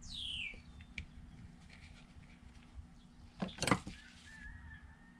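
A short clatter of metal hand tools on a cluttered workbench about three and a half seconds in, as a screwdriver is picked up. A high call that falls steeply in pitch comes right at the start, and a faint thin held tone comes near the end.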